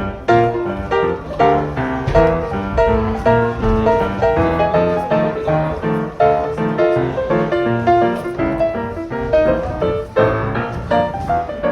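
Background piano music, a continuous run of quick notes.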